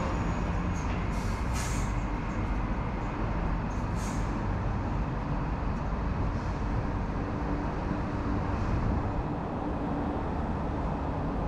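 Docklands Light Railway electric train running along the track, a steady rumble of wheels and running gear heard from inside the car. There are a few short, sharp high hisses in the first four seconds.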